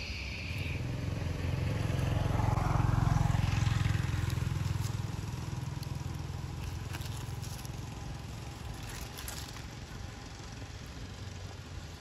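A motor vehicle passing: a low engine rumble swells to a peak about three seconds in, then fades away over the next several seconds.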